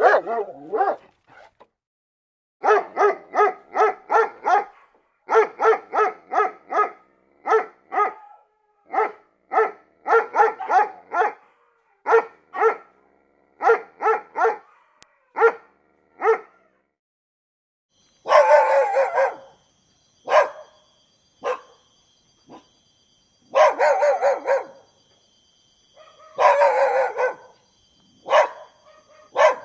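Dogs barking in quick runs of short barks, several a second. About two-thirds of the way through, after a brief pause, the barks turn longer and denser, with a faint steady high whine underneath.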